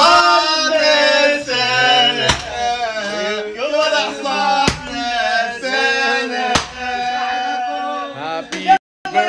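Men's voices singing a birthday song together, with held notes, broken by three sharp clicks spaced a couple of seconds apart.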